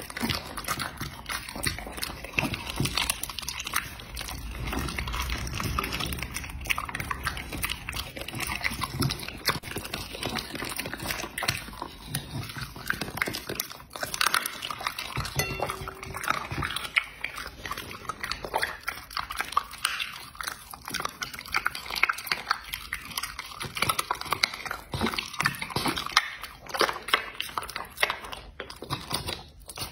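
A dog chewing raw meat with its mouth open: a steady run of wet smacking and crunching chews, with a brief lull about fourteen seconds in.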